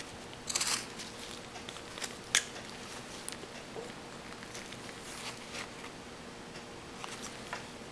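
Whittling knife cutting shavings from a small block of wood: a short scraping slice about half a second in, a sharp click of the blade a couple of seconds in, then several faint cuts and scrapes.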